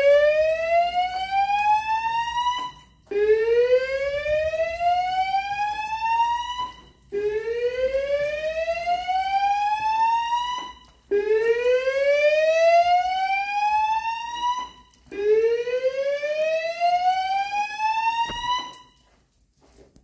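Fire alarm voice-evacuation speakers on a Notifier NFS2-3030 system sounding the whoop evacuation tone. Each whoop is a rising sweep lasting about three and a half seconds, repeated with short gaps, five times, stopping near the end.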